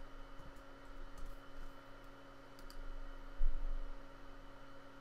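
A few faint clicks from a computer's mouse or keys being worked, over a steady electrical hum. There is one soft low thump about three and a half seconds in.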